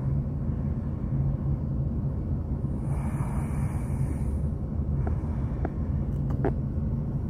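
Steady low rumble of a car's engine and road noise heard inside the cabin while driving, with a few light clicks in the second half.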